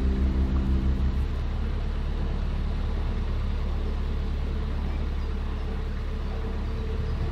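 A narrowboat's engine running steadily at cruising speed, a low even hum. Background music ends about a second in.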